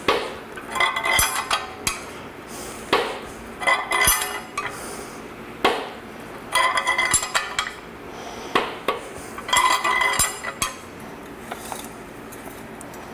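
Metal clinking and clanking in short ringing bursts every second or two as a wrench works the nut of a homemade wet-sleeve puller, drawing a cylinder sleeve up out of a Case diesel tractor engine block. The bursts stop about eleven seconds in.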